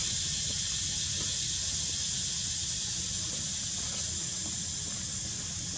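Steady high-pitched insect chorus, cicada-like, with a low rumble underneath.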